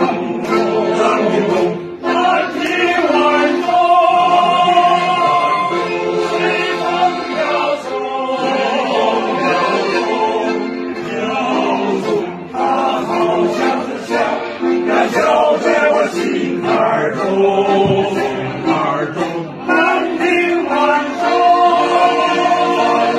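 Background music: a choir singing slow, sustained notes.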